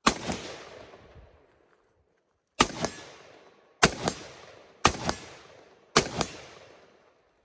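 Rifle fired in five quick pairs of shots, two shots a quarter second apart each time, each pair trailing off in a long echo.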